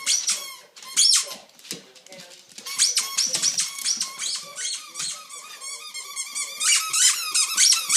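Rubber squeaky dog toy squeaking over and over in quick bursts of high-pitched squeaks as a dog chews on it.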